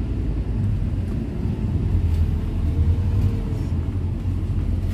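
Steady low rumble of a road vehicle driving along, heard from on board, with a faint whine that rises and falls in the middle.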